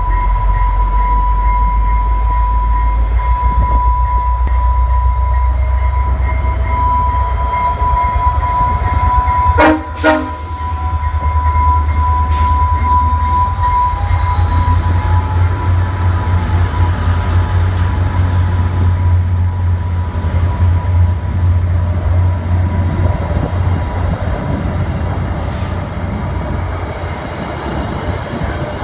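VIA Rail F40PH-2 diesel locomotive, its EMD V16 two-stroke engine rumbling deep as it pulls away and passes, with a whine that rises slowly in pitch as it works, then the passenger cars rolling by. A steady high tone sounds over the first ten seconds, and there is a brief sharp noise about ten seconds in.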